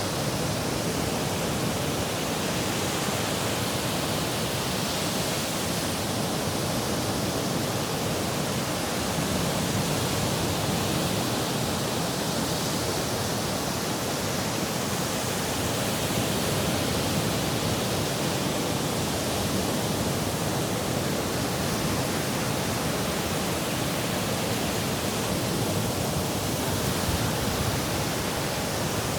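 Sea surf, a steady rushing wash of waves that swells slightly now and then.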